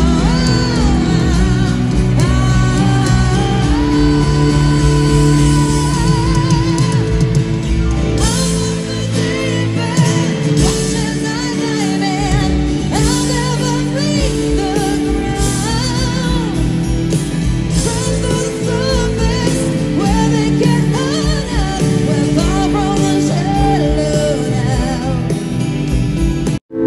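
Live concert music: a rock ballad played on guitar and band, with a wordless, wavering sung vocal line over sustained chords. The sound cuts out suddenly for a moment near the end.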